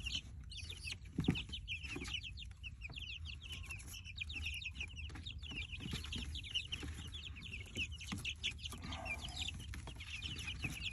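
A flock of young chickens peeping continuously, many short falling chirps overlapping, with one sharp knock about a second in.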